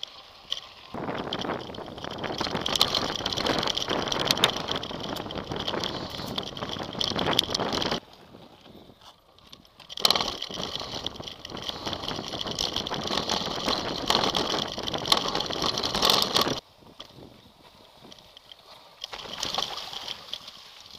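Rush of wind on the microphone and the rattle of a mountain bike ridden fast over a rough grass track and dirt trail. It starts about a second in, stops suddenly about eight seconds in, comes back two seconds later and stops suddenly again about three-quarters of the way through, leaving quieter rolling noise.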